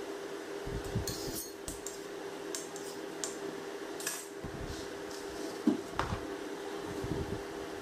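Scattered clinks and light knocks of metal and cake boards being handled on a stone countertop, the loudest a short knock with a brief ring about two-thirds of the way in, over a steady hum.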